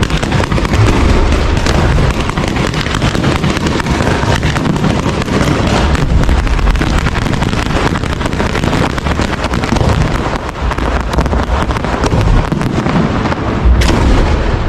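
Fireworks going off in a dense, continuous barrage of rapid bangs and crackling over deep booms.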